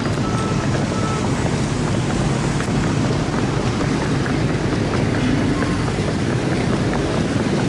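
Steady wind noise buffeting the microphone over the hum of street traffic, with motorbikes and cars passing.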